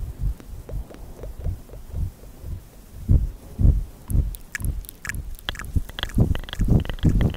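Close-miked ASMR mouth sounds into a small microphone held at the lips: irregular soft low thumps and puffs, joined from about four seconds in by sharp wet tongue and lip clicks.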